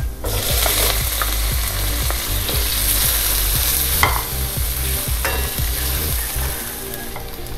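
Diced onion dropped into hot oil in a wok, sizzling up strongly about a quarter second in and frying steadily, with a wooden spatula scraping and tapping against the wok as it is stirred.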